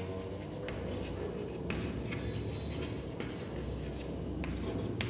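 Chalk writing on a chalkboard: a run of short scratchy strokes and light taps as letters are written.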